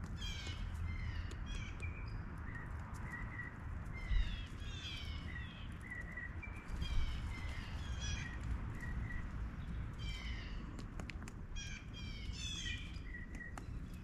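Wild birds calling repeatedly in clusters of quick, downward-sliding chirps, with short repeated notes between them and scattered sharp clicks, over a steady low rumble.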